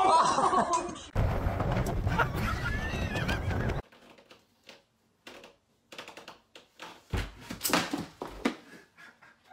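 A person's drawn-out cry of "oh", then a few seconds of rushing noise that cuts off suddenly. About seven seconds in comes a heavy thud and crash as a man falls backwards onto the floor from suspension-trainer straps.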